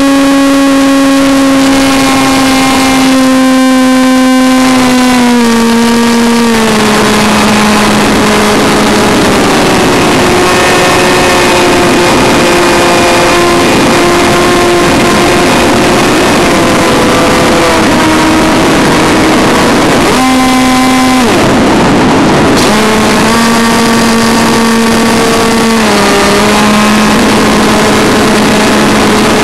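Electric motor and pusher propeller of a Multiplex Funjet Ultra RC jet in flight, heard close up from the airframe: a steady whine over a rushing hiss, stepping down in pitch with throttle changes. About two-thirds of the way through the motor cuts out for a second or two, leaving only the hiss, then spins back up.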